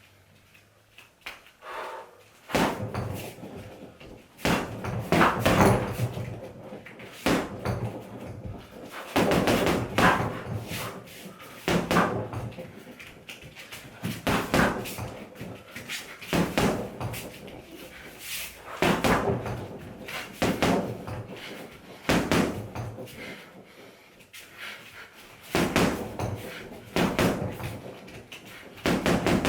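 Punches landing on a home heavy bag in quick combinations: clusters of sharp thuds every second or two, after a short quiet start.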